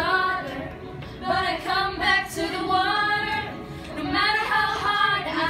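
Female voices singing a song, with long held and gliding notes.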